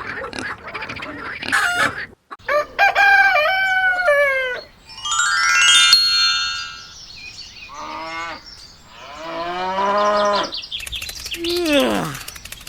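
A run of farm animal calls one after another, among them a rooster crowing. There are about five separate calls, several of them falling in pitch at the end.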